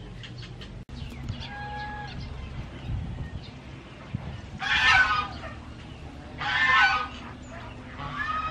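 Chickens calling: a faint call about two seconds in, then three loud calls, each under a second long, spaced a second or two apart in the second half.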